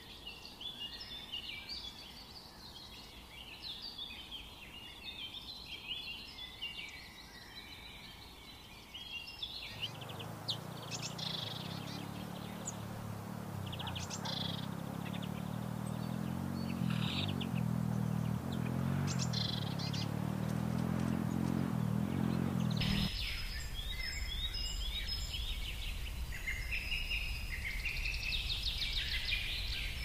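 Many small birds chirping and twittering in a dense chorus. About ten seconds in, the sound changes abruptly: the chirping thins to scattered calls over a rushing noise and a low droning hum. Near the end the dense chirping returns with a thin, steady high note.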